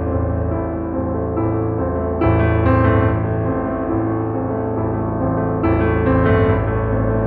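Background piano music: sustained chords changing every second or two over a steady bass.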